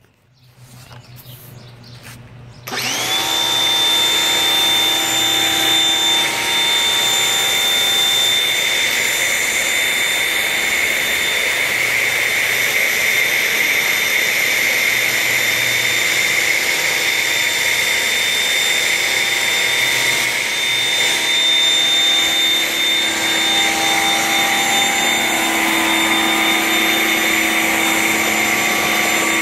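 A Ryobi electric pressure washer starts up suddenly about three seconds in and runs steadily, its motor and pump giving a high whine over the hiss of foam spraying from a foam cannon.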